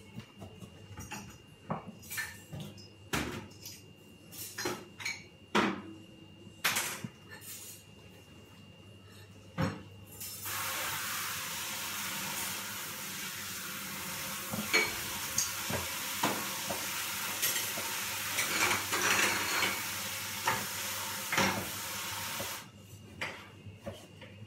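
Knife strokes and knocks on a plastic cutting board as an apple is sliced. About ten seconds in, a steady hiss starts suddenly and carries on until it cuts off abruptly near the end, with clinks and knocks over it.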